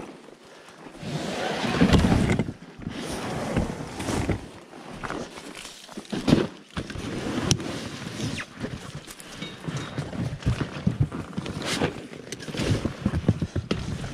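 Rustling, scraping and irregular knocks as an inflatable PVC boat is handled on grass and climbed into, loudest about two seconds in.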